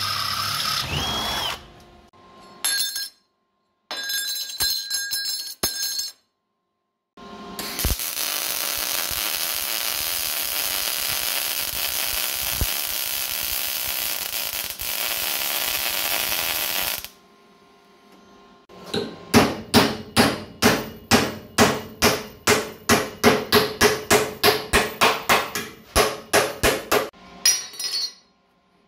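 An electric drill running briefly, then a MIG welder laying a steady weld on a steel chassis rail for about nine seconds, followed by a fast run of hammer blows on steel, about three a second.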